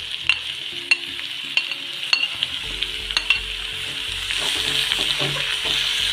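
Onions, potato and sliced mushrooms frying in hot oil in a kadai: a steady sizzle with sharp clicks of a metal spatula stirring against the pan. The sizzle grows louder in the second half.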